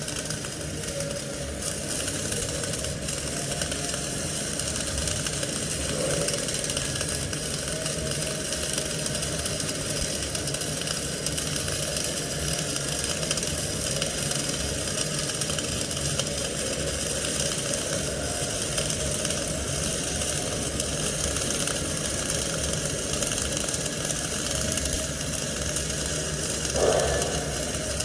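Flux-cored arc welding in progress: the arc crackles and sizzles steadily as the bead is laid.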